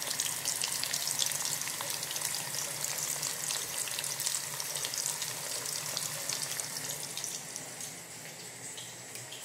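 Cassava sticks frying in hot oil in a pot, a steady dense sizzle of fine crackles and pops. It grows fainter near the end.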